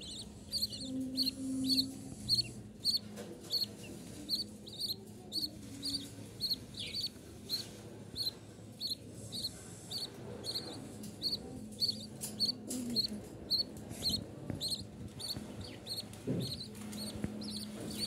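Budgerigar chicks peeping: short high chirps repeated evenly, about two or three a second, the begging calls of nestling budgies.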